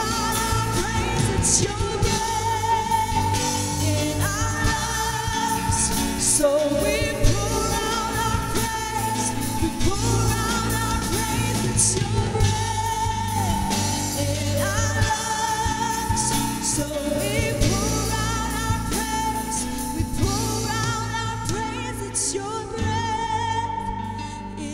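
Live gospel worship music from a church band: a singer holding long notes with vibrato over keyboard, bass and drums, with a cymbal crash about every five seconds.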